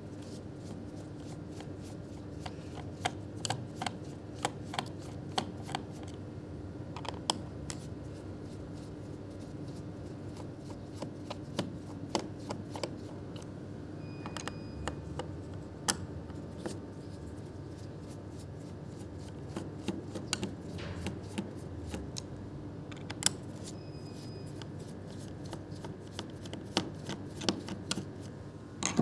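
Irregular clicking of keys being typed on a Lenovo V14 G2 laptop's keyboard, in uneven runs with short gaps, over a steady low hum.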